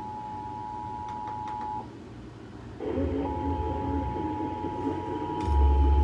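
Emergency Alert System attention signal: two steady high tones sounding together, which cut off about two seconds in. About a second later a lower, rougher sound starts, and a single steady tone comes back over it. A loud low hum begins near the end.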